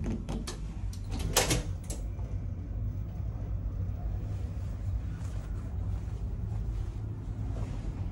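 Clicks and then a louder clunk about a second and a half in as a push-button automatic cabin door is worked, over the steady low rumble of a ferry's engines.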